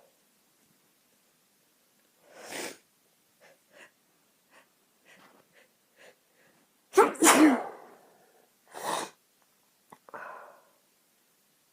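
A woman sneezing. A deep breath in comes about two and a half seconds in, then a few short hitching breaths. One loud sneeze follows about seven seconds in, then a second, quieter breathy burst and a short voiced exhale.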